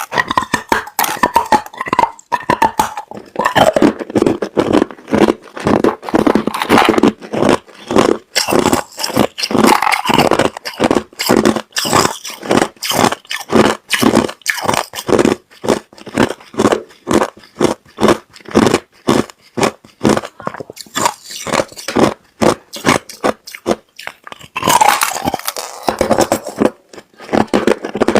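Clear, hard crushed ice being chewed close to the microphone: a steady run of sharp crunches, about three a second.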